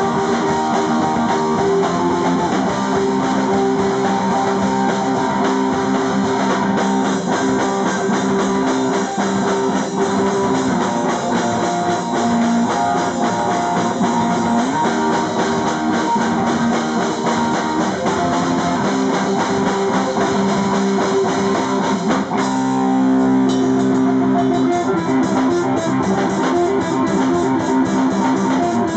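Live rock band playing: guitar over a drum kit, continuous and loud. About three quarters of the way through, the sound briefly settles into held notes.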